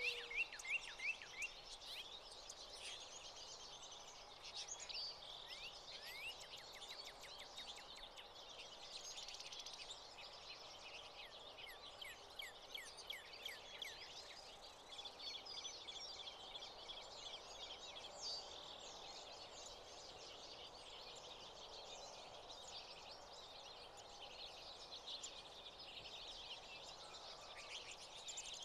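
American goldfinches and house finches chirping and twittering at a seed feeder: many quick, high calls overlapping throughout, over faint steady background noise.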